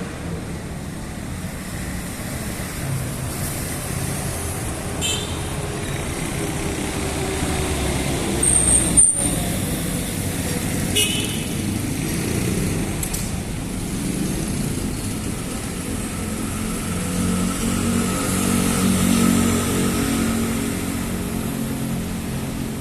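Urban road traffic: a steady rumble of passing cars and trucks, with a couple of brief horn toots and one vehicle's engine passing close in the last few seconds.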